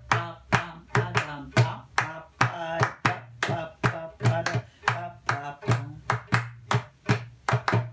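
A small hand drum struck in a steady, even rhythm of about three to four beats a second, with hand claps keeping time and a woman singing the melody over the beats.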